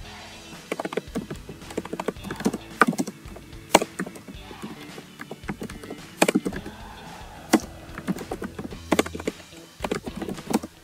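Computer keyboard typing: irregular, sharp keystrokes, a few a second, broken by short pauses.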